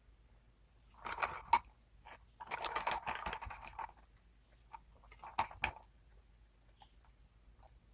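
Close-up eating sounds: three short bouts of crunching, the longest in the middle, as crunchy snacks are bitten and chewed.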